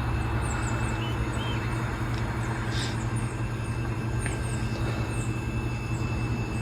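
A steady low mechanical hum, with faint short high chirps scattered over it.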